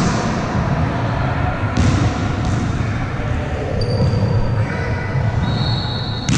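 A volleyball being hit and bouncing on a sports-hall floor: sharp thuds at the start, about two seconds in and again near the end, over the noisy background of a large indoor hall, with a few short high squeaks of shoes on the court in between.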